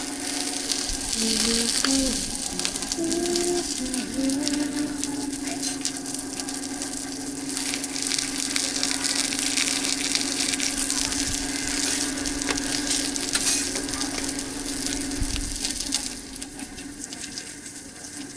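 Cakes frying on a hot pan, a dense sizzle that dies down about sixteen seconds in, over a steady low hum.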